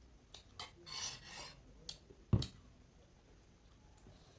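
A few light clicks and a brief rasping rub, then a single dull thump about two and a half seconds in.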